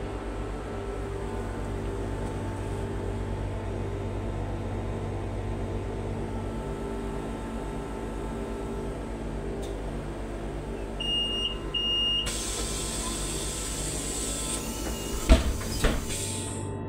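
Cabin noise of a Solaris Urbino 18 electric articulated bus: a steady hum from its drive and running gear with a regular low pulsing. Two short high beeps come about eleven and twelve seconds in, followed by a hissing noise and two sharp knocks near the end.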